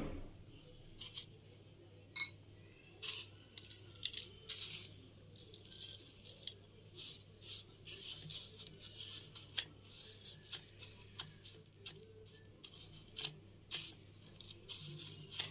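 Crushed dry vermicelli crackling as a batter-coated potato nugget is rolled and pressed in it: an irregular string of small sharp clicks and crunches, several a second.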